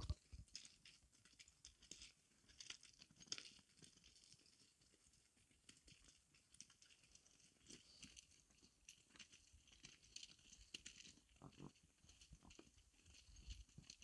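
Faint, scattered clicks and crunches of a herd of Mongolian horses' hooves on stones and grass as the horses walk past.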